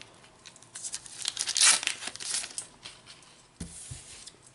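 Foil sticker packet crinkling and tearing as it is opened by hand and the stickers are pulled out, in irregular rustling bursts. Two soft low bumps follow near the end.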